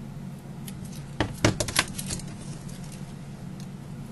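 Craft tools being handled on a tabletop: a quick cluster of sharp clicks and light knocks a little over a second in, as a roll of double-sided tape and a snap-off craft knife are picked up and set down. A steady low hum runs underneath.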